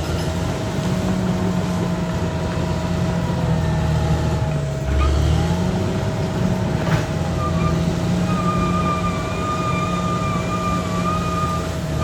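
Caterpillar D6R XL bulldozer's diesel engine running steadily under work, with a brief dip and low thump about halfway through. A wavering high-pitched squeal joins in for the last few seconds.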